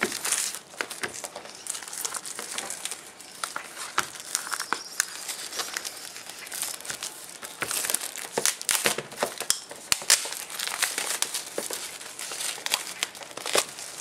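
Plastic shrink-wrap crinkling and crackling as it is torn and peeled off a product box by hand, in a dense run of irregular sharp crackles.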